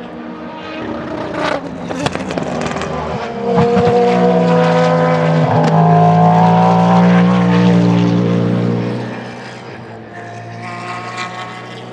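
Cadillac V-Series.R hypercar's naturally aspirated V8 racing past at speed. It grows loudest about four to nine seconds in, then fades as the car pulls away.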